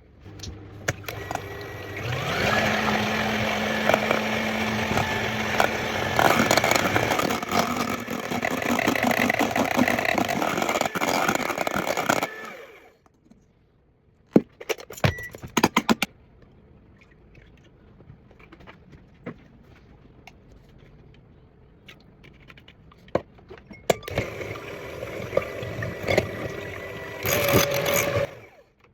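Electric mixer running with its beaters in a bowl: its motor steps up in speed about two seconds in, runs steadily and stops suddenly after about ten seconds. A few light clicks and knocks follow, then the mixer runs again briefly near the end.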